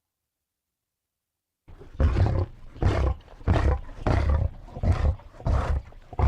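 Creature sound effect made from processed animal recordings: after a silent gap, a rapid series of deep roaring grunts starts about two seconds in, roughly one every half second.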